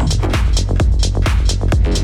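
Techno playing: a steady kick-drum beat over a deep, continuous bass line, with hi-hats about twice a second.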